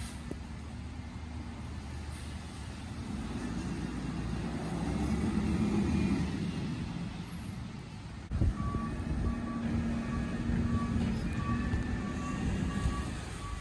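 Peterbilt 320 garbage truck with an Amrep side loader pulling away on a wet street, its engine rumbling steadily and swelling to its loudest about halfway through. In the last few seconds a reversing beeper sounds repeatedly at an even pace.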